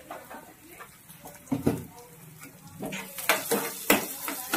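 Steel spoon scraping and knocking against a nonstick frying pan, stirring turmeric into finely chopped onions frying in oil, with light sizzling. The scrapes are scattered at first and come quicker and louder over the last second and a half.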